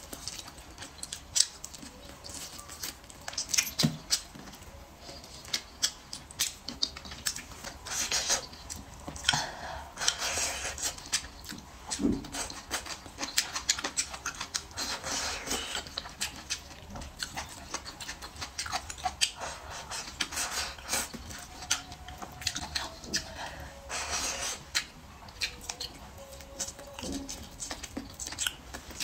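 Close-miked eating: wet chewing, lip smacks and clicking mouth noises as meat is bitten and sucked off bone-in braised poultry, with a few longer sucking noises along the way.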